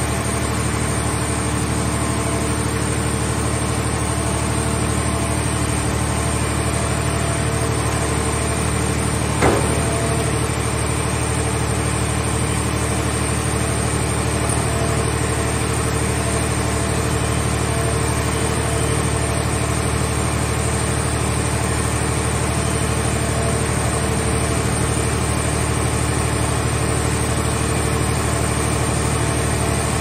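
Steady drone of a scrap car shell baler's power unit running as its grab crane handles a car body, with one sharp metal clank about a third of the way in.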